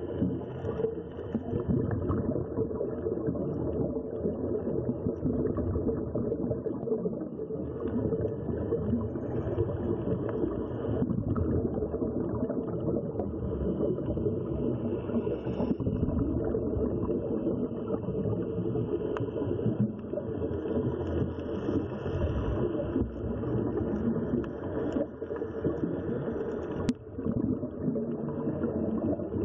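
Steady, muffled underwater rumble, the water noise picked up by an action camera in its waterproof housing.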